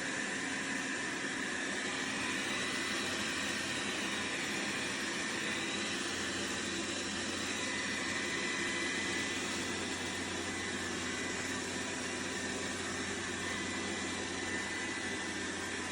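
Robot vacuum cleaner running: a steady whir of its suction fan with a thin, steady high whine.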